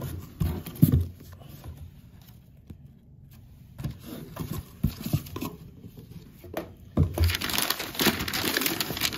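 White packing paper crinkling and rustling as it is unwrapped from around a box by hand. A couple of knocks come in the first second, then scattered handling noises, then steady, dense rustling from about seven seconds in.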